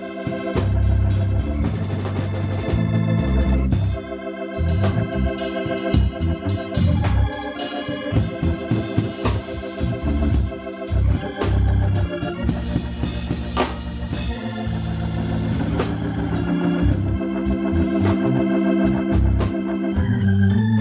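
Hammond organ playing gospel music: sustained chords over a moving low bass line, with frequent sharp percussive hits throughout.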